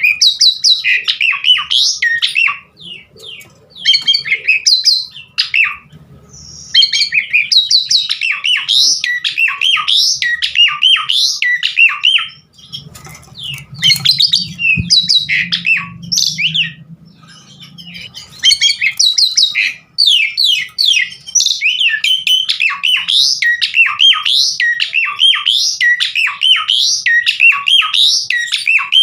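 Javan pied starling (jalak suren) singing vigorously: a long string of fast, varied chattering, whistled and squawking notes in rapid bursts, broken by a few short pauses.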